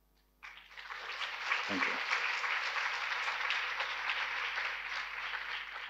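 Audience applauding, starting about half a second in and building quickly to a steady clapping.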